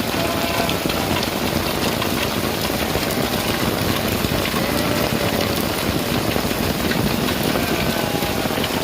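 Steady rain falling and pattering on surfaces, with a few faint, short calls in the background.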